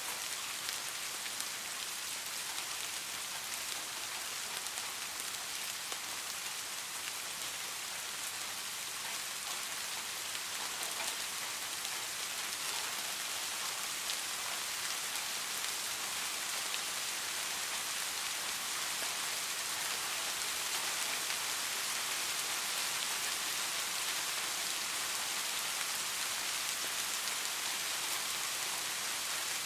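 Steady rain falling on surfaces: a dense, even patter of drops.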